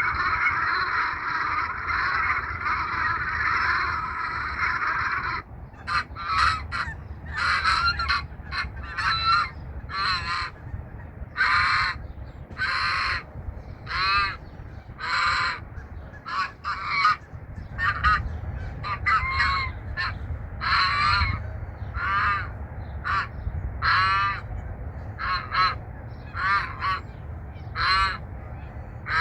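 A flock of geese honking. For the first five seconds or so many calls overlap into a dense, continuous chorus; after that single honks come one after another, about one or two a second.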